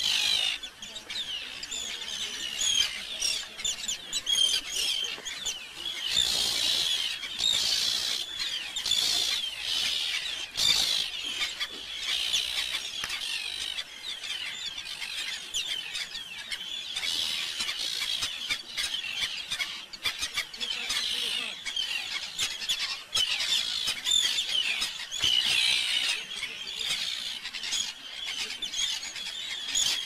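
A large flock of seabirds calling overhead: many shrill, overlapping calls, each a short falling cry, without a break.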